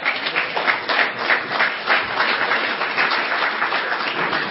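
Audience applauding: many hands clapping, breaking out at once and carrying on steadily.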